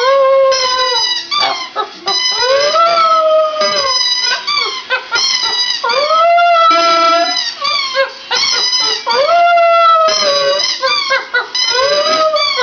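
Border Terrier howling: a run of long howls, each a second or two, rising and then sliding down in pitch, with short breaks between them.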